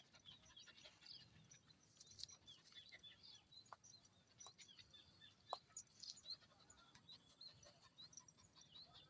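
Near silence, with many faint, short high chirps and a few soft clicks.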